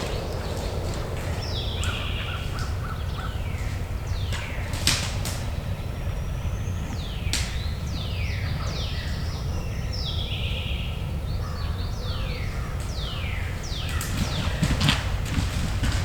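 Birds calling: several harsh, caw-like calls among many repeated falling whistled notes, over a steady low rumble, with a few sharp clicks.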